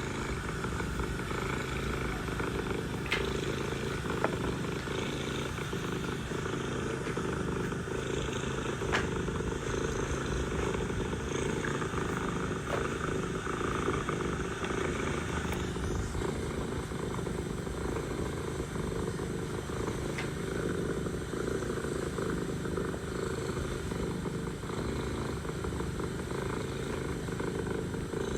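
Mother cat purring steadily and continuously, with a few short clicks along the way.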